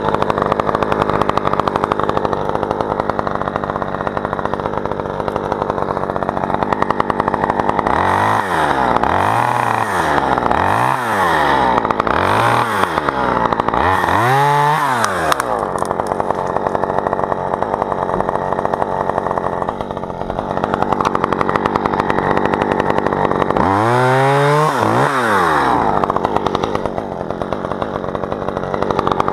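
Two-stroke top-handle chainsaw idling, revved up and back down several times about eight to fifteen seconds in, and once more about twenty-four seconds in.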